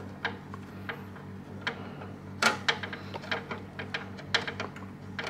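Small irregular clicks and ticks as a screw is driven in to fasten a PCIe card's metal bracket to the PC case, a few a second, over a low steady hum.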